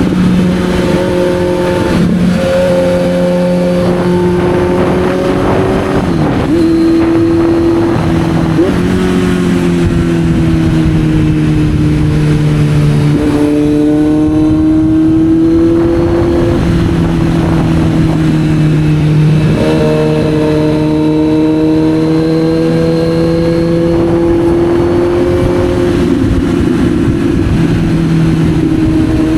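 Kawasaki Z900's inline-four engine running under way, its note rising and falling with the throttle. There are brief sharp breaks in pitch about six and eight seconds in, and a slow fall in pitch around the middle before it climbs again.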